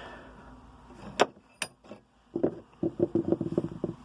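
Metal parts being handled: two sharp clicks, then a quick run of rattling knocks near the end.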